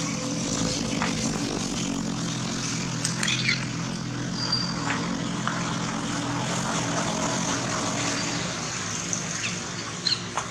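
A steady engine drone with a low, even hum, and a few short high chirps over it.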